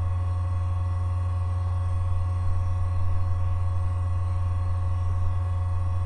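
Steady low electrical hum with a few faint, steady higher whine tones above it, the background noise of the recording's microphone chain.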